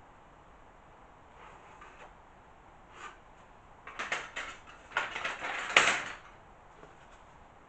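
Handling noises on a workbench: a single knock about three seconds in, then a couple of seconds of irregular scraping and clattering as a small hand saw and a piece of wood are picked up and handled.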